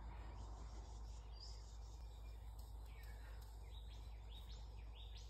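Faint outdoor ambience: a steady low background rumble. Over it, a bird calls a few short rising chirps in the second half.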